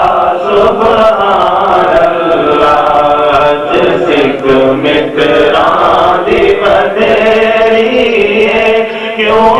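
Male voices chanting the melody of a Punjabi naat in long, drawn-out lines, over a steady low hum.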